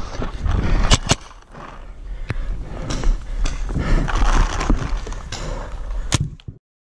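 Paintball field heard from a player on the move: rustling and irregular footfalls with a few sharp paintball cracks, two close together about a second in, one at about two seconds and one near the end. The sound cuts off suddenly just before the end.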